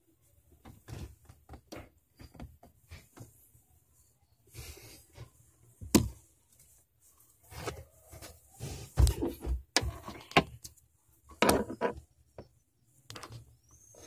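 Irregular knocks, clicks and rubbing from handling against hard plastic, with a few sharper knocks in the second half.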